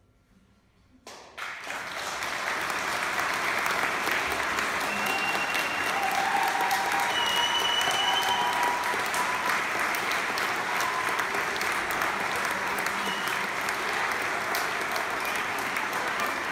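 Audience applause breaking out suddenly about a second in after a moment of near silence, then holding dense and steady, with a few short calls from the crowd over it.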